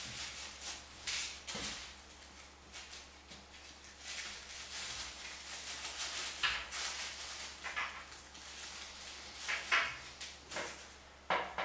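Paper flowers rustling and crinkling as hands push them onto a wire wreath, in irregular short bursts, the clearest about six and a half, nine and a half and eleven seconds in.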